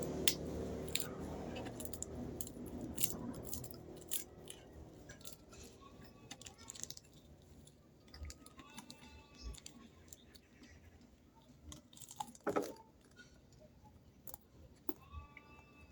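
A person eating red rice: chewing, with sharp clicks of a utensil on the plate. A low vehicle hum fades away over the first few seconds.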